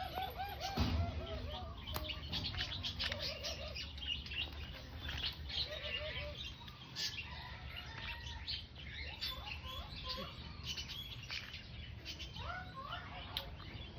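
Pet parrots chirping and chattering in many short, arching calls, mixed with scattered sharp clicks. There is a brief low thump about a second in.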